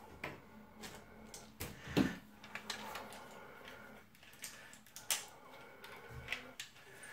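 Plastic Lego bricks and parts clicking and knocking irregularly as they are handled, light clicks with a few louder knocks, the loudest about two seconds in.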